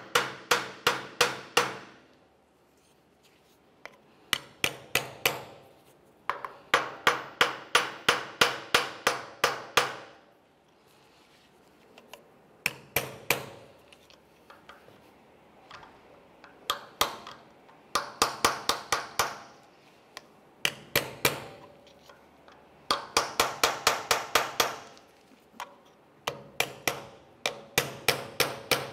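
Ball-peen hammer tapping a center punch against the metal of a BMW X3 transfer case actuator housing in quick runs of light strikes, about four a second, with short pauses between runs. The metal is being peened down to stake the actuator's base plate back in place.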